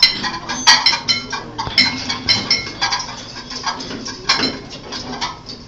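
Dishes and silverware clinking and clattering in quick, irregular strikes with a ringing tone after many of them: a live sound effect of a busy diner.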